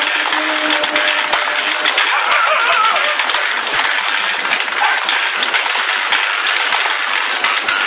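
Mechanical light-sequencing controller of a thorana running: a motor-driven contact drum turning under its metal contact fingers, with switching relays, making a dense, continuous metallic clicking and clatter.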